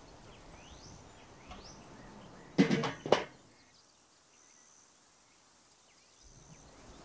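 Two sharp knocks about half a second apart, made as the wooden pizza peel and metal tongs handle the pizza on the charcoal grill's cooking grate. Faint bird chirps sound in the background before them.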